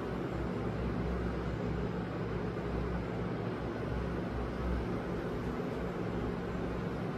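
Steady room background noise: a constant low hum with an even hiss, no speech.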